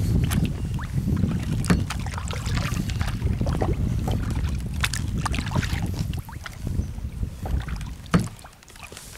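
A small paddled boat on still water: a steady low rumble of wind on the microphone with scattered sharp knocks and splashy clicks from the paddle and hull. The rumble eases off near the end.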